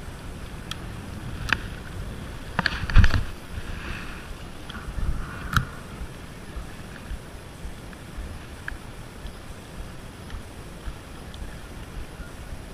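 Steady wind and water noise on an inlet jetty, broken by a few sharp clicks and a loud knock about three seconds in.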